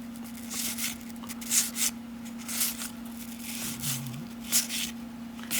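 1991 Topps baseball cards being slid and flipped against one another by hand: a series of short, irregular papery swishes. A faint steady electrical hum runs underneath.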